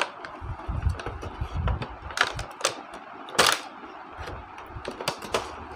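Handling noise from a cardboard box and its white packaging tray: an irregular run of sharp clicks and rustles, with a few low thumps in the first two seconds and the loudest click a little after the middle.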